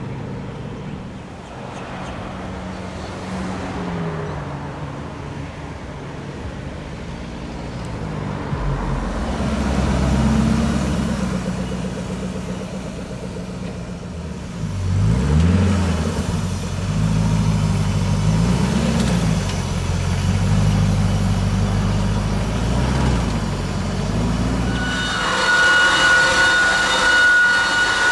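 Koenigsegg CCX's 4.7-litre V8 running at low speed, its revs rising and falling again and again in light blips of the throttle while maneuvering. About three seconds before the end a steady high whine joins in.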